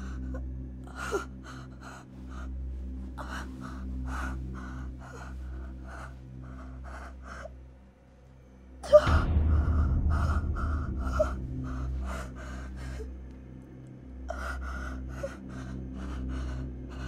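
A woman panting in quick, shaky gasps, about three breaths a second, over a low steady drone. About nine seconds in, a sudden loud low rumble swells up and the gasping carries on louder over it.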